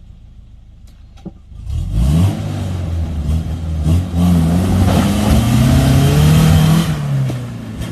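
Suzuki Samurai's four-cylinder engine revving hard under load as it climbs a waterfall, rising sharply in pitch about two seconds in, holding high and loud, then easing off near the end.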